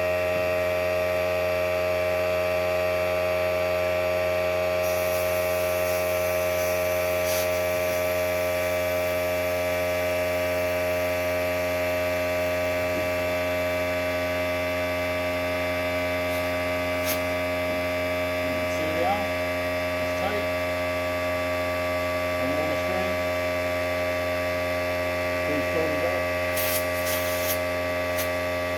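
Air compressor running steadily, a constant hum made of several steady tones, while it inflates a flat wheelbarrow tire through the air hose.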